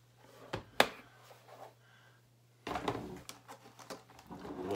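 Two sharp clicks near the start, then from just under three seconds in a run of clattering and rustling as clay and art supplies on a work table are rummaged through.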